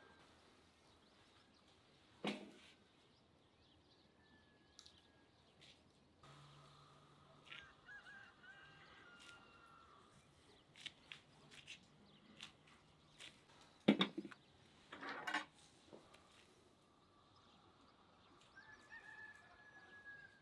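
Metal kebab skewers and a fork clicking and clinking against each other and the tray as meat is threaded on, sharply about two seconds in and in a cluster around fourteen to fifteen seconds. Faint bird calls come from the background.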